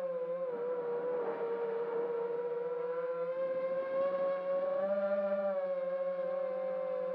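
FPV quadcopter's brushless motors whining at a fairly steady pitch, heard through the drone's own camera, with a rushing noise over the first few seconds. The drone is sitting on the grass with its motors still spinning at idle, and the pitch rises briefly about five seconds in.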